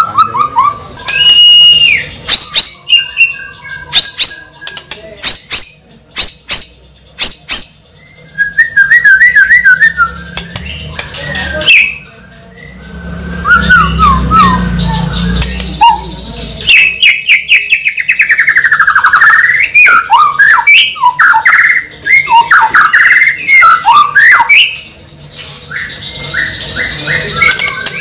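A bird calling loudly: a varied run of chirps, whistles, trills and squawks, with sharp clicks in the first half and a long swooping whistle later.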